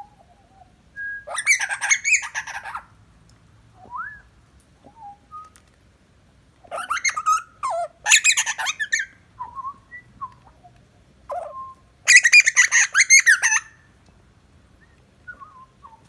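Juvenile butcherbird calling in three loud bursts of harsh, squawky warbling, about a second in, around seven seconds in and around twelve seconds in, with short thin whistled notes between them.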